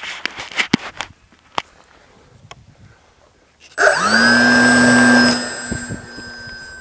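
Model Corsair's motor and propeller, heard from a camera on the airframe. A few scattered knocks and gusty rumble come first. About four seconds in, the motor spools up sharply to a loud steady whine, holds for about a second and a half, then throttles back to a quieter steady drone.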